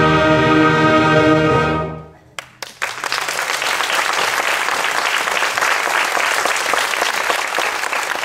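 A high school concert band holds a final full chord of brass and woodwinds, which is cut off about two seconds in. After a few scattered claps, audience applause breaks out and carries on steadily.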